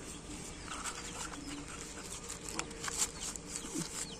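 Faint crinkling and rustling of tissue paper as a wireless microphone's charging case is unwrapped and taken out of its box, with faint bird chirps behind.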